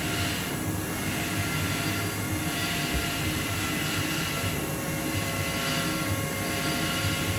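CNC machining centre running steadily, a low hum with several faint steady whines, as its probe moves to touch off the sides of the cylinder bore to find its centre.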